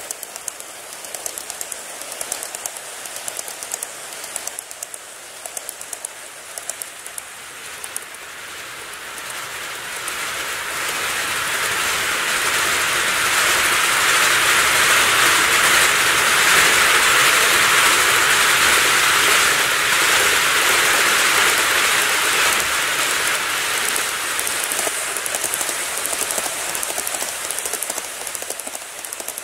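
KATO N-gauge model trains running on layout track: first a quick run of clicks from wheels over the rail joints, then a steady rushing hiss of wheels and motors that grows louder from about ten seconds in and eases off near the end.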